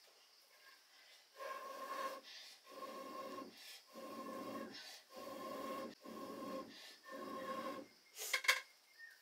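Six blows of breath through a metal blowpipe into the wood fire of a clay stove, about one a second, each a rushing blow of under a second with a hollow whistling tone. A couple of sharp knocks near the end.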